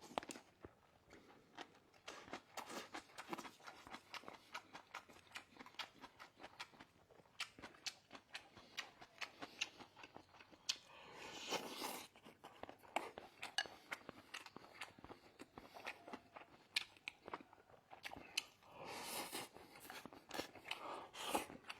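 Close, wet chewing and biting as someone eats a bowl of fatty beef roll hotpot, a steady run of small irregular mouth clicks and crunches, with a couple of longer noisier stretches partway through and near the end.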